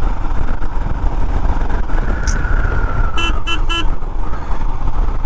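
Motorcycle under way, its engine and wind noise making a steady rumble. A little past three seconds in, a horn gives three short beeps in quick succession.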